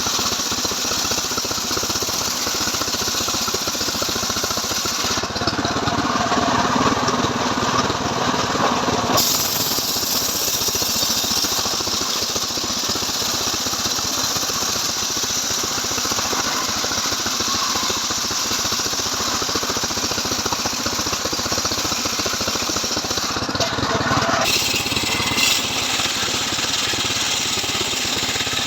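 Stihl MS 381 two-stroke chainsaw running continuously under load while ripping a log on a home-built chainsaw sawmill rig. Its sound changes a few times: around 5 s, 9 s and 24 s in.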